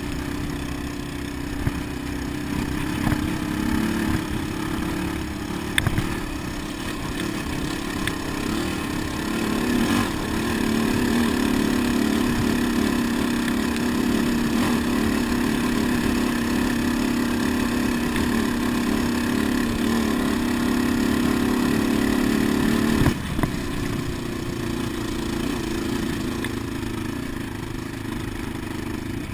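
Sport quad (ATV) engine running while riding over sand, with a steady drone. The engine is held at higher revs from about a third of the way in, then eases off sharply about three quarters through. A couple of short knocks come before the revs rise.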